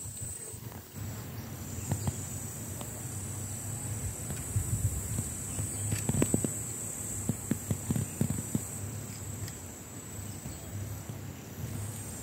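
Insects singing in one steady high-pitched drone that drops out briefly twice. From about four to nine seconds in, a series of short low thumps and rustles.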